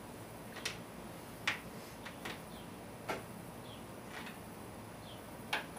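Faint, scattered metallic clicks and taps, about six spread irregularly over several seconds, from hand tools and parts handled at the top of an ATV engine as the spark plug is taken out to fit a test plug.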